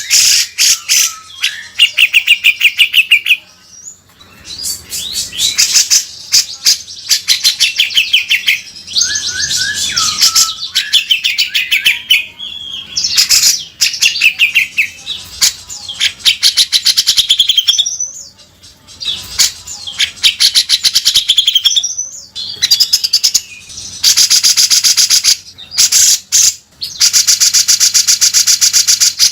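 Grey-cheeked bulbul (cucak jenggot) singing in loud bouts of harsh, rasping chatter and fast trills, with a few short whistled notes and brief pauses between bouts.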